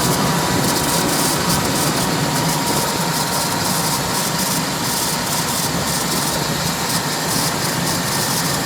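Truck engine idling steadily just after a hard cold start in extreme cold, jump-started from a jump starter power bank.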